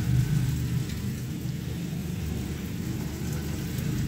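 Chicken mince frying in a non-stick pan on an induction hob: a faint, even sizzle under a steady low rumble.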